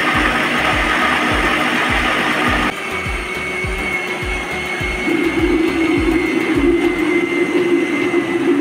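Electric mixer grinder running at full speed, grinding soaked black gram into a wet batter in its steel jar. About three seconds in, its whine steps slightly higher and the sound gets a little quieter.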